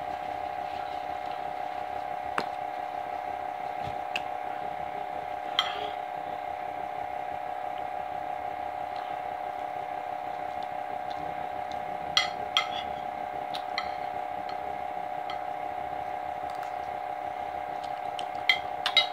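Eating at the table: a fork clinks on a plate now and then, a handful of short sharp clicks spread through, over a steady hum.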